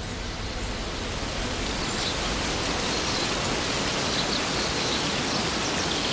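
Steady hiss of falling water, with faint high chirps from about two seconds in.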